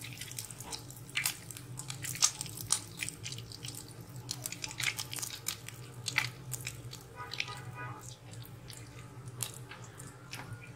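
Egg-coated chicken-potato donut deep-frying in hot oil in a wok: the oil sizzles with irregular sharp crackles and pops, over a low steady hum.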